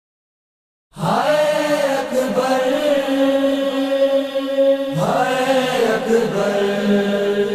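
Silence for about a second, then unaccompanied voices chanting the opening of a Sindhi noha in long held notes, with a new phrase starting about five seconds in.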